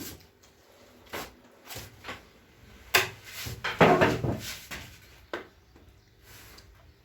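People eating a meal: scattered short clicks and knocks, with a louder, noisier stretch about three to four and a half seconds in.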